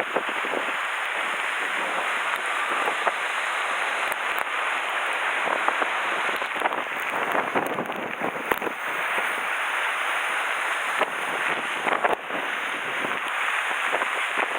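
Typhoon storm wind and rain: a steady rushing noise that swells in gusts, with a few sharp taps scattered through it.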